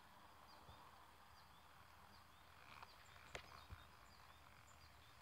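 Near silence: faint outdoor background with small high chirps repeating every half second or so, and two soft clicks about three and a half seconds in.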